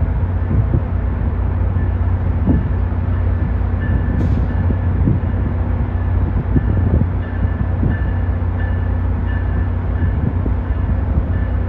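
Amtrak GE Genesis diesel locomotive approaching slowly, its engine running with a steady low hum, and irregular low knocks as the wheels pass over rail joints and switches.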